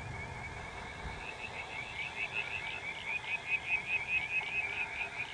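A frog calling steadily in a rapid, even run of short high notes, with the low rumble of thunder dying away in the first second.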